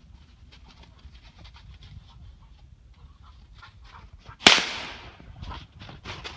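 A single gunshot about four and a half seconds in: one sharp crack with a short ring-off, fired up into the trees at a squirrel. Faint scattered ticks and crunches come before it.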